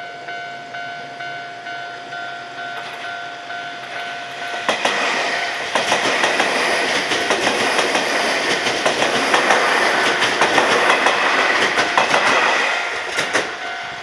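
Level-crossing warning bell ringing in a steady repeating two-tone pulse. About five seconds in, a Keio Inokashira Line train passes over the crossing, its wheels clattering over the rail joints and drowning the bell for about eight seconds. The bell is heard again near the end.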